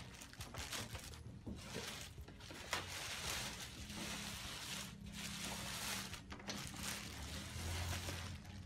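Clear plastic wrapping bag rustling and crinkling in irregular bursts as it is handled and pulled off a new printer.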